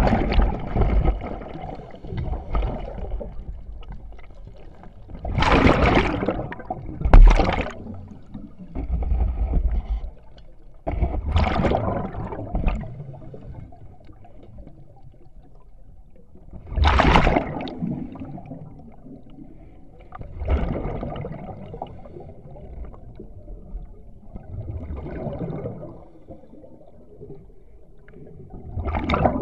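A scuba diver breathing underwater through an open-circuit regulator: loud bursts of exhaled bubbles every few seconds, with quieter gurgling between breaths.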